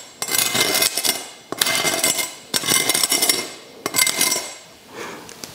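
A knife sawing through the crisp, blistered crackling of roast pork belly, crunching loudly in four long strokes with short pauses between them.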